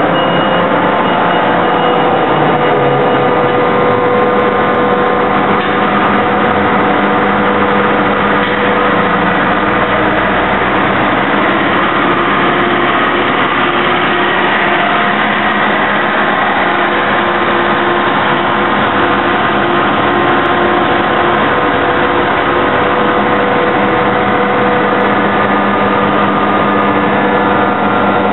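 Steady, loud machinery drone with several held tones, no hammer blows; the running plant of a hydraulic die-forging shop.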